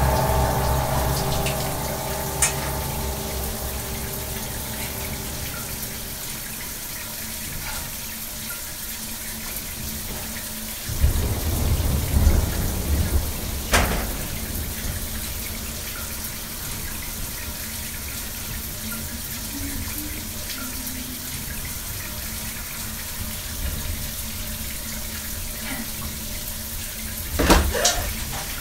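Shower spray running, a steady hiss of water, under a low drone that fades out over the first several seconds. Two sudden louder low rumbles break in, one about eleven seconds in that ends in a sharp crack, and another near the end.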